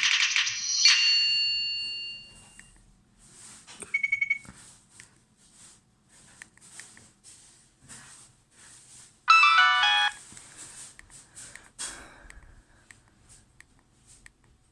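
Nokia 6103 mobile phone playing short ringtone snippets through its speaker. A loud chiming tune cuts off about a second in and rings away, a quick run of beeps comes around four seconds, and a brief fast jingle follows near ten seconds, with faint clicks in between.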